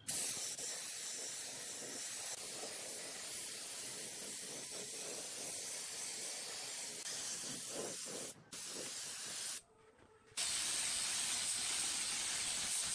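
Compressed-air gravity-feed spray gun hissing steadily as it sprays a finish coat onto wood. The trigger is let go twice, briefly about eight seconds in and for about a second just before ten seconds, then spraying resumes, with a thin high whistle in the last stretch.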